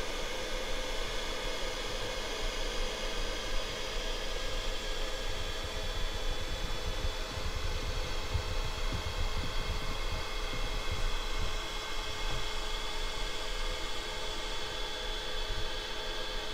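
Simulated tank engine sound from the Torro Leopard 2A6 RC model's sound unit, idling steadily: a low uneven rumble with a hiss and several constant whining tones, coming out of the model's small speaker.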